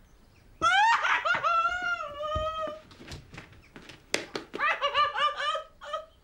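A woman's high-pitched, wordless cry that rises and then slowly falls, followed after a pause by a quick run of short, high vocal pulses.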